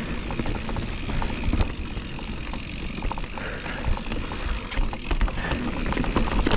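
Mountain bike riding down a dirt trail: steady tyre rumble with frequent clicks and rattles from the bike over bumps, and wind on the microphone.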